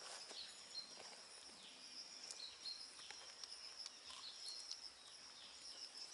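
Faint outdoor ambience: a steady high-pitched insect drone, with a few short bird chirps and scattered soft clicks.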